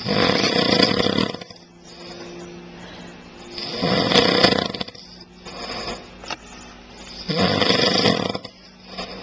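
A man snoring: three long, loud snores about three and a half seconds apart, each over a second long, with quieter breaths between them.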